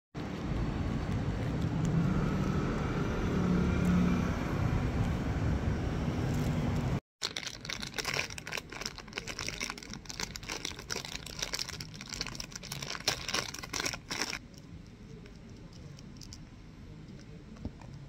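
Steady road-traffic noise, cut off abruptly about seven seconds in. Then thin plastic packaging crinkles and crackles in quick irregular clicks as a small item is unwrapped by hand, and this dies down a few seconds before the end.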